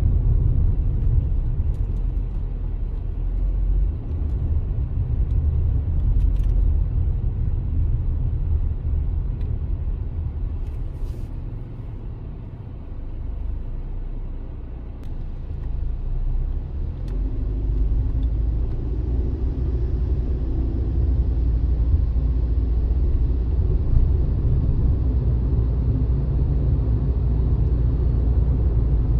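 Low, steady rumble of a vehicle on the move, engine and road noise. About halfway through it eases for a few seconds, then builds again.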